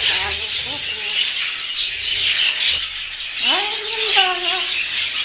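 Blue-fronted Amazon parrot calling: short calls early on, then a drawn-out call about three and a half seconds in that rises in pitch and holds. A steady background of high chirping runs throughout.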